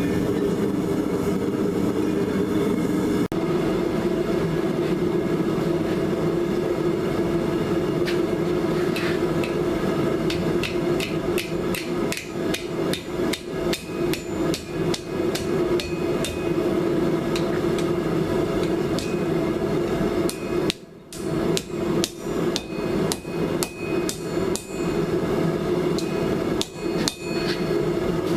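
Hammer blows on hot steel pipe, opening out the slit pipe into a split cross. The strikes start about a third of the way in, come quickly, and pause briefly about three quarters through, over a steady roar from the forge.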